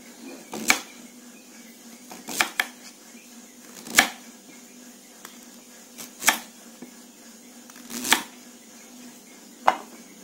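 Kitchen knife slicing a peeled sweet potato on a wooden cutting board: a sharp knock each time the blade cuts through and strikes the board, about seven times, every second or two.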